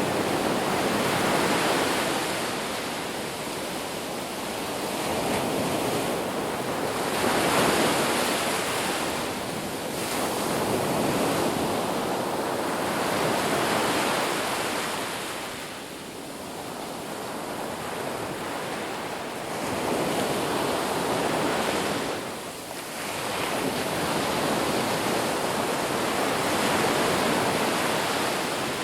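Ocean surf breaking on a beach: a continuous wash of waves that swells and ebbs every few seconds, each wave building to a rush and then drawing back.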